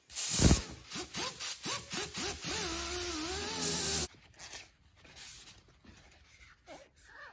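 Small grinder with a wire cup brush scrubbing rust off a steel part: a string of short bursts, then a steady run of about a second and a half with a wavering whine, cut off abruptly about four seconds in. After that, only faint rubbing as a rag wipes the part.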